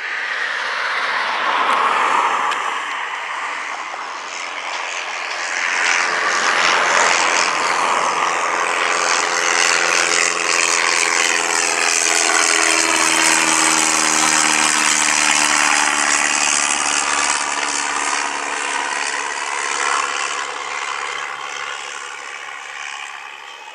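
An aircraft passing close by: its engine sound swells, holds loud, and slowly eases. A set of low tones slides gradually down in pitch as it goes past.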